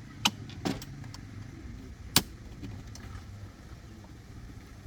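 An engine idling with a steady low hum, with three sharp clicks: a quarter second in, just under a second in, and the loudest about two seconds in.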